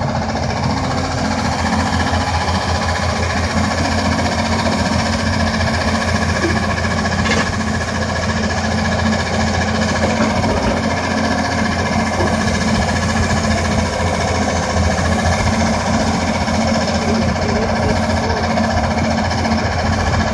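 Doosan DX300LC excavator's diesel engine running steadily under hydraulic load as the boom lowers and swings a rock drill mast, with no drilling under way.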